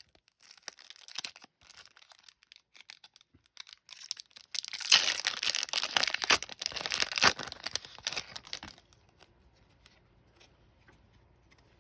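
Trading card pack wrapper being crinkled and then torn open, with sparse crackles at first and a long, loud tear in the middle; after that only faint ticks of the cards being handled.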